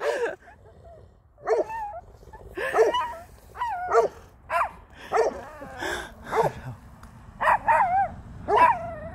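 Chihuahua yapping at a fence: about a dozen short, high-pitched barks, one every half-second to second.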